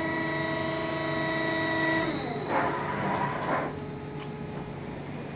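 CNC hydraulic press brake's electric drives whining steadily, the whine falling in pitch and stopping about two seconds in. About a second of rough noise follows, over a steady low hum.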